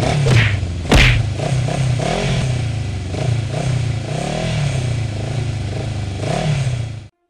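Off-road motorcycle engine revving up and down again and again, with a loud thump about a second in. The sound cuts off suddenly near the end.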